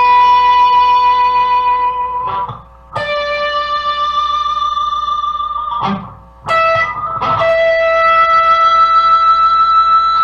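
Electric guitar with a built-in magnetic sustainer pickup in its harmonizer mode, holding single notes that ring on without dying away; about four notes, each a little higher than the last, picked in turn. The tone is piercing and electronic-sounding, with a high overtone standing out above the note.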